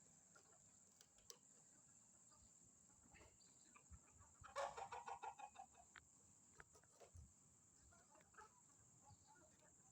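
A chicken hen gives a rapid burst of clucking about halfway through, with a few fainter clucks and clicks around it.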